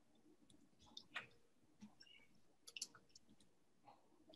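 Near silence: faint room tone with a few small, faint clicks scattered through it.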